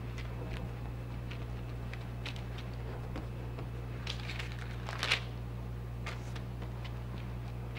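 Hands patting and pressing soft dough flat on a sheet of baking paper: scattered soft taps and paper rustles, with a louder crinkle of the paper about four to five seconds in, over a steady low hum.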